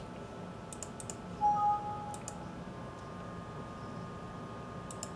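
Computer mouse clicks, in small clusters, as dialog buttons are pressed. There is a short, steady electronic tone about a second and a half in.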